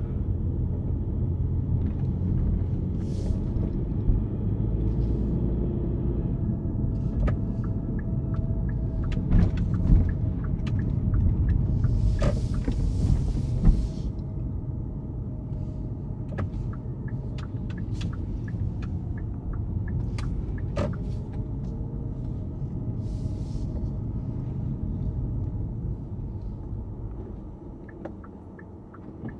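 Low, steady rumble of a Hyundai Kona Hybrid on the move, heard inside the car, with scattered small clicks and knocks. A short hiss comes about halfway through, and the rumble eases off near the end.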